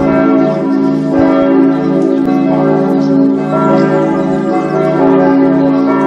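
Several church bells pealing together, calling to the Sunday service. New strikes come about once a second and overlap into one continuous, dense ringing.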